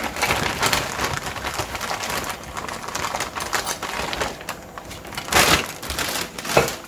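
Small pistol parts and springs being handled and sorted on a work mat: a busy run of light clicks, taps and rustling, with two louder clacks near the end.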